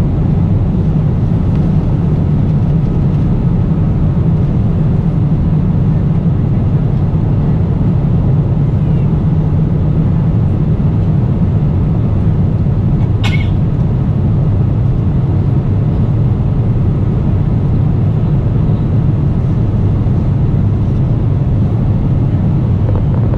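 Steady low drone of an airliner cabin in flight: engine and airflow noise, heaviest in the bass. A single short click sounds about thirteen seconds in.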